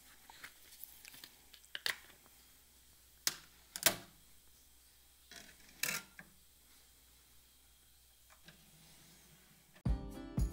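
A few sharp plastic clicks and taps, several seconds apart, as a CD is taken from its jewel case and placed in the open tray of a California Audio Labs Icon Mark II CD player; the loudest click comes about 4 s in. Music with a steady beat starts near the end.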